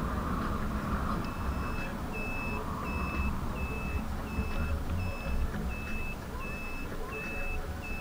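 Electronic warning beeper sounding a steady string of short, evenly spaced beeps at one pitch, about three every two seconds, starting about a second in. Underneath are wind rush and road rumble from riding.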